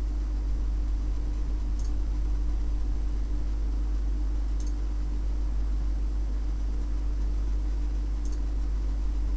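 Steady low hum with an even hiss, unchanging throughout, with three faint short clicks near the start, middle and end.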